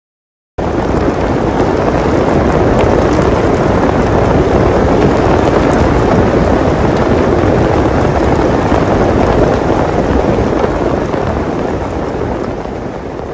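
Loud, steady rushing of heavy rain, cutting in suddenly about half a second in and fading near the end.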